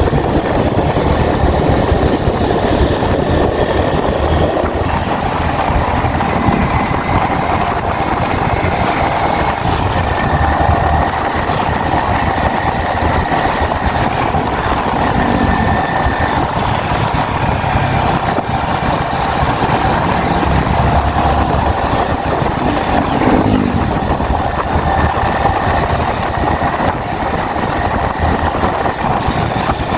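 Yamaha XSR 155's single-cylinder engine running steadily while the motorcycle is ridden, with wind noise mixed in.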